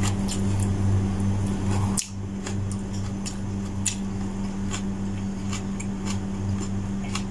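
Close-up eating sounds of a person chewing food eaten by hand: scattered sharp, wet clicks and smacks a few times a second. A steady low hum runs underneath.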